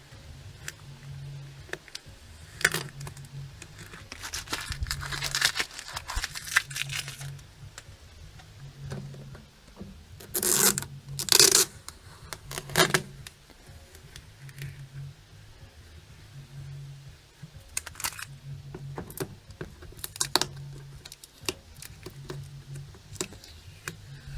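Masking tape and paper being peeled and torn off a spray-painted microwave panel: a run of tearing and scraping, with the loudest rips about ten to thirteen seconds in.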